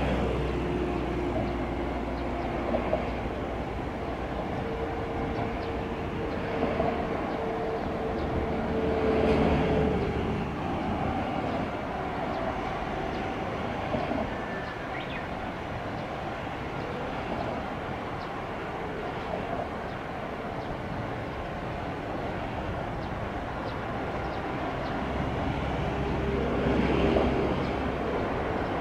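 Chichibu Railway 5000 series electric train running along the line at a distance, a low steady rumble that swells slightly near the end as it approaches.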